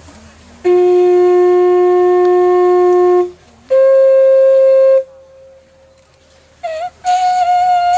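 A wind instrument plays slow, long held notes, each a step higher than the last: a low note held for about two and a half seconds, a higher one, a brief one, then a still higher note that wavers in pitch near the end.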